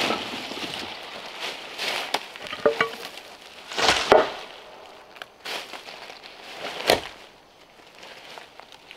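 Dry fallen leaves crackling and rustling in several short bursts as gloved hands scoop them up and boots tread on them.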